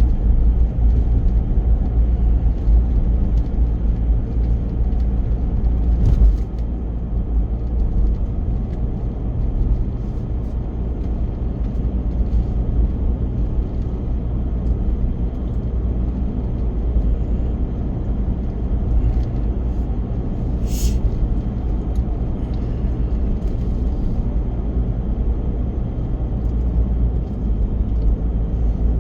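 Car cabin noise while driving: a steady low rumble of engine and tyres on the road. A brief sharp high-pitched click or squeak about twenty seconds in.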